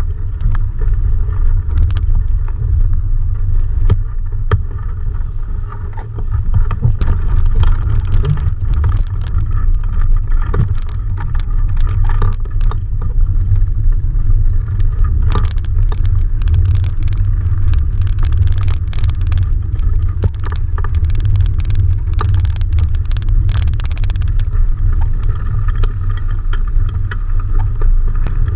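Wind buffeting the microphone of a camera mounted at the masthead of a sailing dinghy: a loud, steady low rumble. From about halfway through, a spell of crackling and clicks lasts several seconds.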